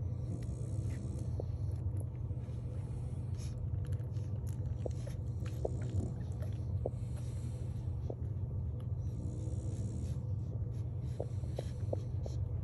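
Seven-day-old French bulldog puppies nursing: many short suckling clicks and little squeaks and grunts, over a steady low hum.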